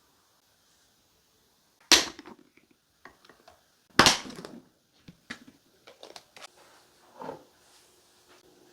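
Glass food storage containers with snap-lock lids being handled: two loud, sharp clacks about two seconds apart, then lighter clicks and clatter.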